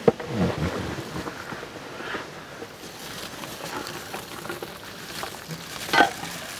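Soaked jeerakasala rice poured from an aluminium pot into a large pot of boiling spiced water: a steady pattering rush. A sharp metal knock comes at the start and a louder knock about six seconds in.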